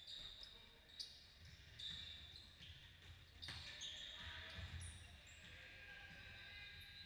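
Basketball game in a gym: sneakers squeak repeatedly on the court, the ball knocks a couple of times, and faint voices are heard.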